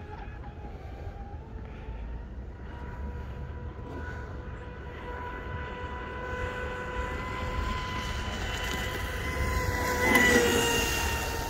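SBY Aeromarine Titan 40 RC speedboat running at speed, its motor giving a steady high whine that grows louder and rises a little as the boat comes closer. About ten seconds in it passes close with a hiss of spray, then the whine drops slightly in pitch as it moves away.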